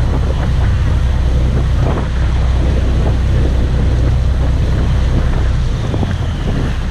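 Passenger boat under way: its engine runs with a steady low rumble beneath the rush of water churning along the hull, and wind buffets the microphone.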